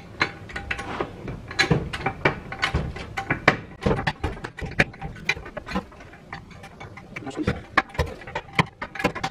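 A jack being worked under the front of a car to raise it: a run of irregular metal clicks and knocks, several a second.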